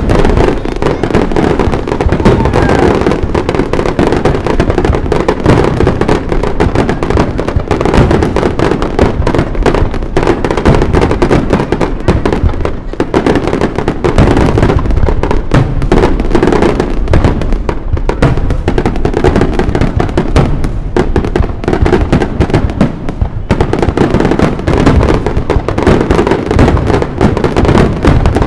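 A fireworks display: a dense, continuous barrage of shells bursting in rapid succession, with crackle between the bangs.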